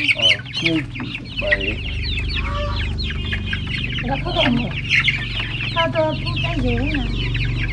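Local black chickens clucking and squawking in a rapid stream of short, high, falling calls as they are lifted out of a plastic crate into a wire cage.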